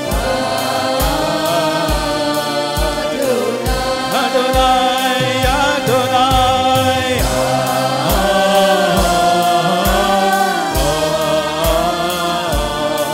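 A man singing a gospel worship song over electronic keyboard accompaniment, with a steady drum beat at about two beats a second.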